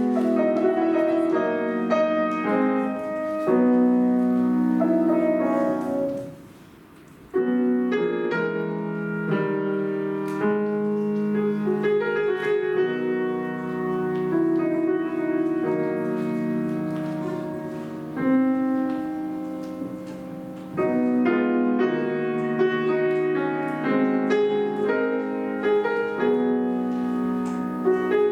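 Piano music: a flowing run of notes that breaks off for about a second some six seconds in, then carries on.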